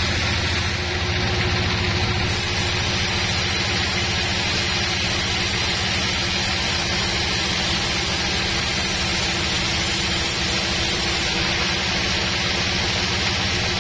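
Sawmill band saw and its drive engine running steadily: an even mechanical hum with a low engine throb under a broad hiss.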